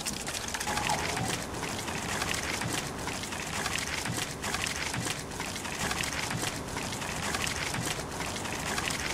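Beer poured out of a can, splashing and fizzing onto brick paving: a steady crackling hiss full of small ticks that stops abruptly at the end.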